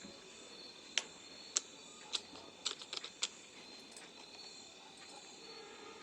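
About eight short, light clicks over a faint steady hiss, scattered between about one and three seconds in and bunched closest together just before the midpoint.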